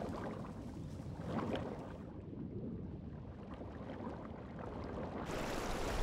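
Shallow river water running over gravel, a steady rushing hiss that swells briefly about a second and a half in and grows brighter near the end.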